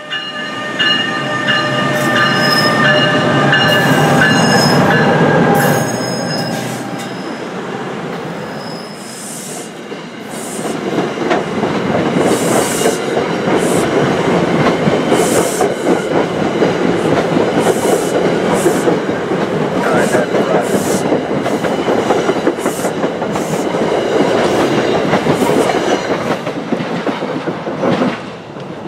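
NJ Transit ALP-46A electric locomotive passing close, its drive giving off a whine of several steady tones over the rumble. Then its passenger coaches roll past with repeated rail clacks and rumbling, which stop abruptly as the last car clears near the end.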